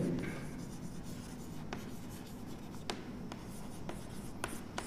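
Chalk writing on a classroom chalkboard: faint strokes of the chalk with a few sharp light ticks as it meets the board.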